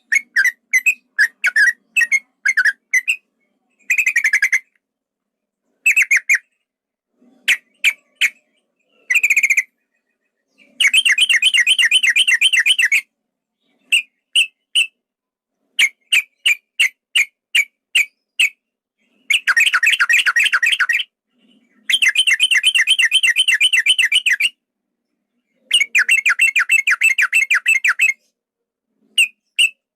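Yellow-vented bulbul (trucukan) singing: quick runs of short whistled chirps, broken four times by long rapid trills of about two seconds each.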